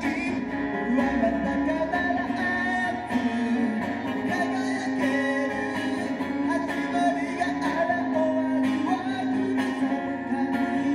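A man singing live to his own acoustic guitar, strummed in a steady rhythm.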